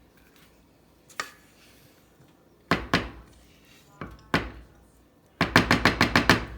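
Sharp knocks and taps on kitchenware: a single knock about a second in, two quick pairs near the middle, and a fast run of about eight taps near the end.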